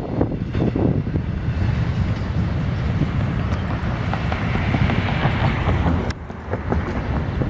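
Wind buffeting the microphone over the low rumble of an approaching diesel freight locomotive, with a few sharp clicks about six seconds in.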